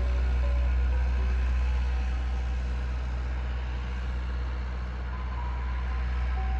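Ice cream truck chime melody, a simple tune of short notes, thinning out in the middle and coming back near the end, over a steady low hum.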